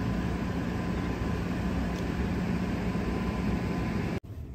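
Steady whirring machine noise with a low hum and a faint high tone. It cuts off abruptly near the end, leaving a quieter hiss.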